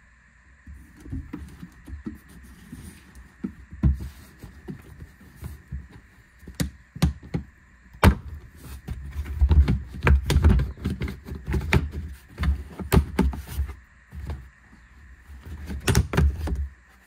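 Plastic interior trim panel in a Honda CR-V's rear cargo area being pried up and unsnapped from its clips: a series of clicks, knocks and rattles of plastic being handled, with the sharpest snap about eight seconds in and more clicks near the end.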